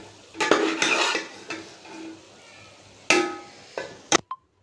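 Metal spoon scraping a cooking pot and clinking against a plate as thick curry is dished out. The loudest clink comes about three seconds in.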